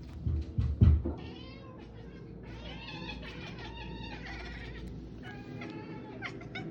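Domestic cat meowing over and over in short calls that waver in pitch, with a few loud thumps in the first second.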